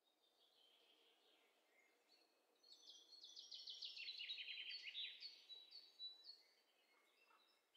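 Faint songbirds chirping and singing, with a quick run of rapid chirps about three seconds in, over a soft background hiss.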